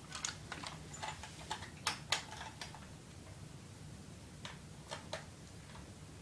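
Irregular small clicks and taps of a hard-plastic battery-powered toy robot being handled and its switch worked, with no motor sound: the robot does not respond.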